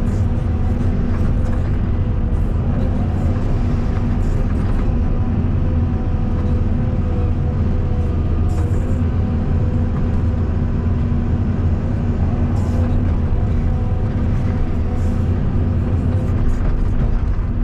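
Caterpillar 320 D2 hydraulic excavator's diesel engine running steadily under working load, with a few faint clicks.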